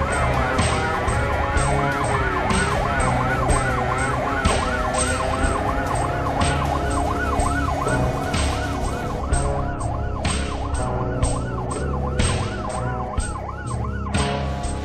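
An emergency-vehicle siren in a fast up-and-down yelp, about three sweeps a second, that stops near the end, over background music with a steady beat.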